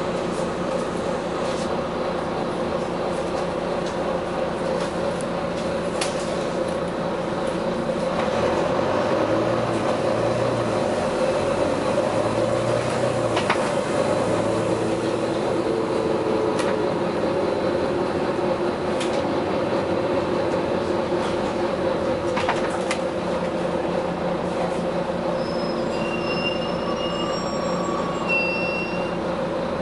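Steady mechanical running noise with a constant hum, occasional sharp clicks, and a few brief high squeaks near the end.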